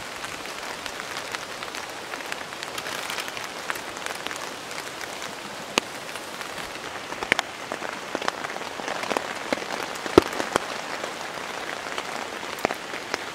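Steady rain falling on a tarp overhead, with scattered heavier drops and a few sharp clicks, the sharpest about ten seconds in.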